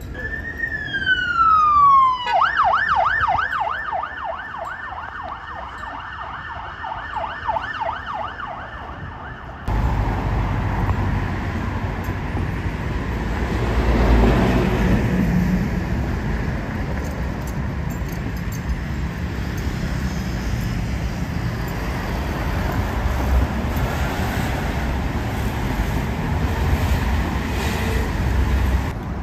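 An emergency vehicle's siren winds down in a falling wail, then switches to a fast up-and-down yelp. It cuts off abruptly about ten seconds in and gives way to road traffic, which swells as a vehicle passes close about fourteen seconds in.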